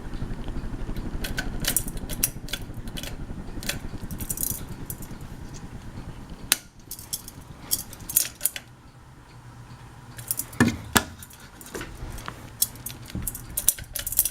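Light metallic clinking and jingling, in scattered short clicks, over a steady low rumble that cuts off about halfway through.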